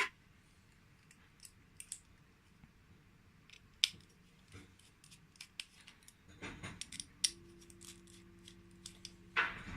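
Sparse small metallic clicks and taps of a Torx driver and tiny screws against the parts of a folding knife being taken apart, with one sharper click about four seconds in and a cluster of taps a couple of seconds later. A faint steady hum comes in over the last two seconds.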